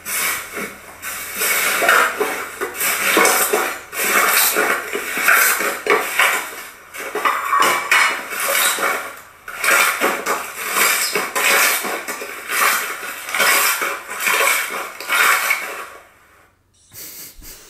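Blue slime mixed with small white cubes being squeezed and pressed by hand, giving crackly crunching in repeated bursts about once a second, dying away near the end.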